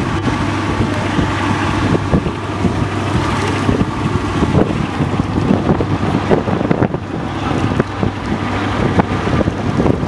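Strong wind buffeting the camera microphone: a loud, continuous, fluttering low rumble.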